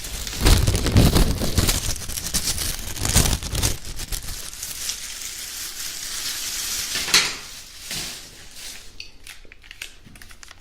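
Dense crackling and crinkling noise, loudest for the first seven seconds or so, with a sharp click about seven seconds in, then fading to a quieter crackle.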